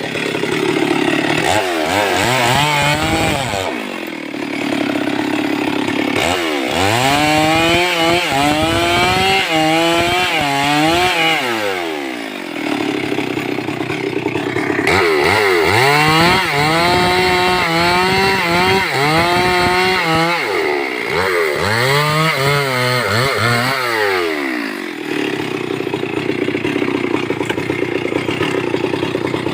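Stihl 382 chainsaw's two-stroke engine alternating between idle and high revs: three runs up to speed, a short one near the start and two long ones of several seconds each with the pitch wavering, each dropping back to a steady idle.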